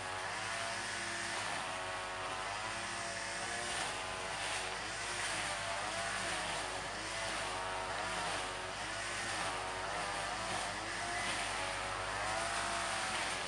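Diesel engines of an HST's Class 43 power cars running as the train draws slowly in, a steady engine drone whose pitch wavers gently up and down.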